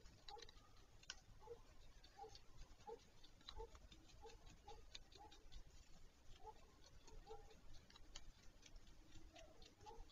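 Faint, short pitched notes repeating two or three times a second, with scattered light ticks: the unexplained weird sounds from under a black stork nest.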